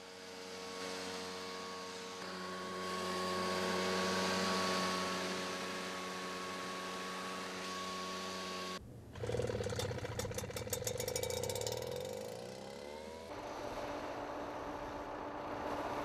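Small engine of a portable sprayer running steadily. It stops abruptly about nine seconds in, then an engine is started and revs up, rising in pitch for a few seconds before settling into a steady run.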